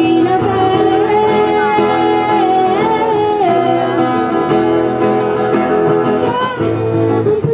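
A woman singing a song into a microphone, holding long notes, accompanied by a strummed acoustic guitar.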